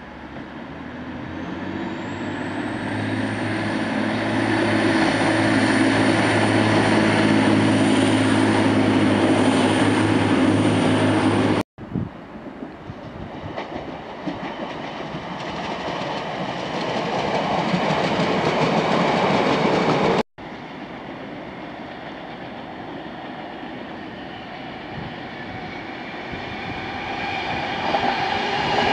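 Passenger trains running past on the line, in three cut-together takes. First a Northern multiple unit approaches with a steady hum and a high whine that climbs and then holds. Then comes the rumble of another Northern unit. Last, a Class 390 Pendolino electric train runs in, getting louder near the end.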